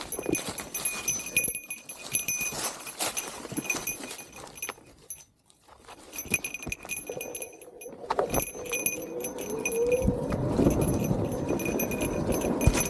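Motorcycle ridden over rough trail: dense clattering and knocking, a brief near-quiet dip about five seconds in, then the engine note rising and falling as the throttle is worked from about seven seconds on.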